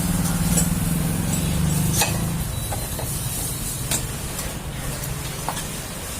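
Metal hand tools clinking on a motorcycle engine being dismantled: several separate sharp clinks over a low steady hum that weakens about two and a half seconds in.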